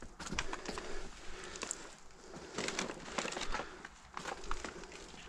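Footsteps crunching over debris, with scattered crackles and clicks, in two stretches: one near the start and one around the middle.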